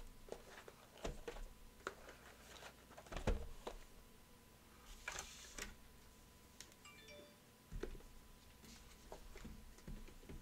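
Shrink-wrapped trading card boxes being handled and set on a table: faint scattered taps and knocks, with a brief crinkle of plastic wrap about five seconds in. A faint steady tone runs underneath.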